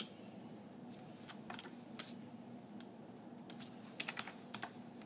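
Computer keyboard keys tapped a handful of times at an uneven pace, with short light clicks over a faint steady hum.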